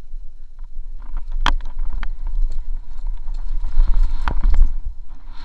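Mountain bike riding fast down a dirt trail: a low rumble of tyres and wind on the bike-mounted camera's microphone, with frame and chain rattle and sharp knocks over bumps, twice much louder, about a second and a half in and past four seconds.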